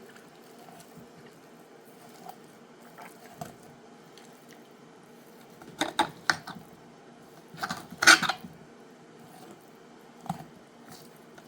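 A few scattered clicks and knocks of a knife against bone and a cutting board as a chicken breast is filleted off the keel bone. The loudest knock comes about eight seconds in, over a faint steady hum.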